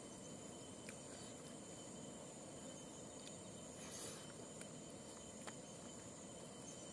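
Faint steady high-pitched insect trilling, with a few soft clicks and a short rustle about four seconds in from eating rice by hand.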